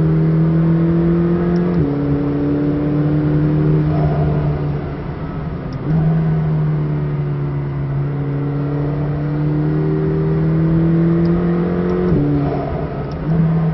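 McLaren 620R's twin-turbo V8 heard from inside the cabin, pulling hard at speed with its note climbing steadily. The pitch drops sharply about two seconds in and again near the end, and the engine eases briefly about five seconds in.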